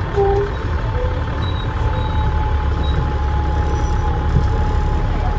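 Dennis Trident double-decker bus engine running under way, heard from on board as a steady low rumble. Over it runs a steady thin whine, the turbo whistle.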